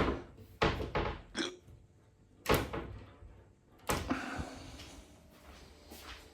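About half a dozen sharp knocks and clunks of kitchen things being handled, over the first four seconds, the loudest at the very start and about two and a half seconds in. Quieter handling noise follows.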